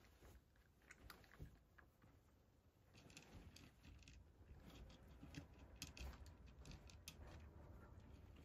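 A domestic cat crunching dry kibble from a dish: faint, crisp, irregular crunches that come thicker from about three seconds in.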